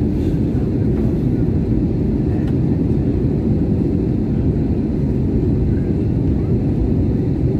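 Steady low rumble of a jet airliner's engines and airflow heard inside the cabin at a window seat beside the wing, as the plane descends on approach to land.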